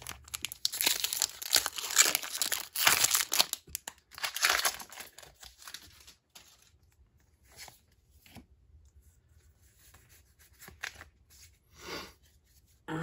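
A Pokémon booster pack's foil wrapper being torn open and crinkled, in several loud ripping bursts over the first five seconds, then only faint rustling as the pack and cards are handled.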